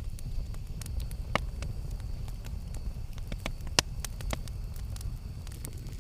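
Campfire burning with a steady low rumble and irregular sharp crackles and pops of burning wood, the loudest pop about four seconds in.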